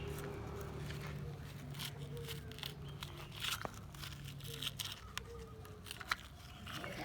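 Toy construction vehicles scraping and crunching through sand and soil: a run of short scratches and clicks over a steady low hum.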